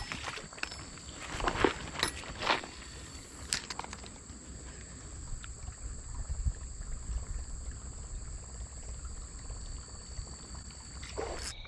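Outdoor creek-side ambience: a low steady rumble with a thin, steady high-pitched whine, and a few brief rustles and clicks in the first four seconds.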